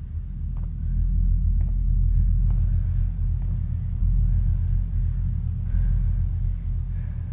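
Deep, steady rumbling drone that swells about a second in, with faint footsteps about once a second on a tiled floor.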